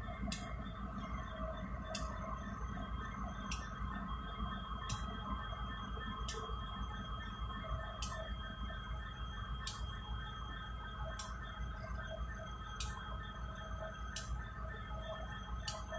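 Kansas City Southern diesel locomotives running at low speed while switching: a steady engine rumble and hum, with a sharp click about every second and a half.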